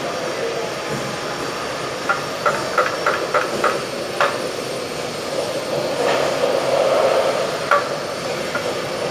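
Steady background rumble, with a quick run of about seven light knocks, a few a second, about two to four seconds in, and one more near the end. The knocks come from hand work on a wall-mounted fire alarm annunciator box being installed.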